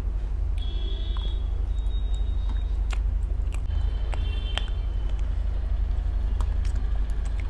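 Eating sounds of chewing and biting into chicken biryani and chicken lollipop, heard as scattered short clicks over a steady low rumble.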